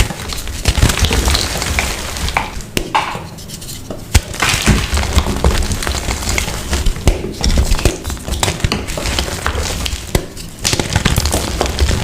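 Blocks of coloured gym chalk crushed and crumbled by hand: dense crunching and crackling with many sharp snaps, easing off briefly twice.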